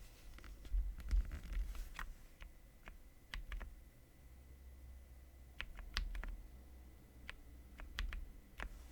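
Ikki68 Aurora mechanical keyboard with lubed Kiwi tactile switches: scattered single keystrokes, irregularly spaced clicks rather than continuous typing.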